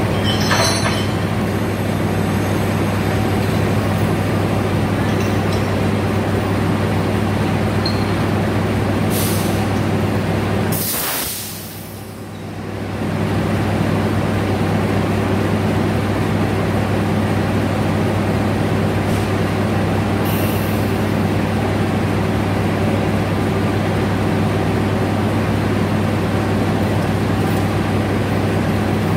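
KAI CC 206 diesel-electric locomotive idling with a steady low drone. About eleven seconds in, a loud burst of compressed-air hissing comes from the brake hoses between locomotive and coach as they are uncoupled, with shorter hisses near nine and twenty seconds in.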